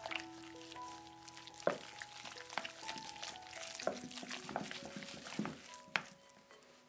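Wooden chopsticks stirring minced raw chicken and sauces in a glass bowl: a wet, crackly mixing noise with a few sharp taps of the sticks against the glass. Soft background music with sustained notes plays underneath.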